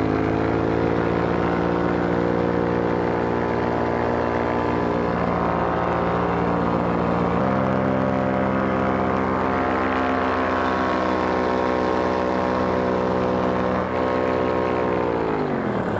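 A Moster 185 two-stroke paramotor engine runs steadily in flight, its pitch stepping slightly about halfway through. Near the end its pitch drops sharply as the throttle is eased off to start the descent.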